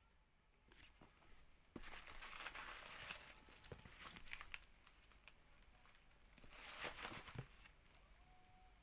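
Packaging being torn open and crinkled by hand, in two bouts of rustling with small clicks, the second shorter, about two seconds in and again near the end.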